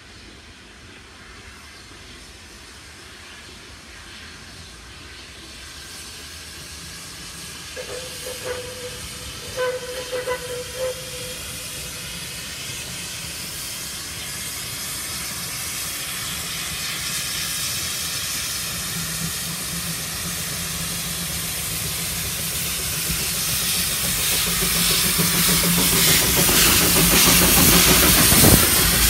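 Puffing Billy narrow-gauge steam locomotive approaching and passing, growing steadily louder. A few short whistle toots sound about a third of the way in, and the hiss of steam is loudest as the engine goes by near the end.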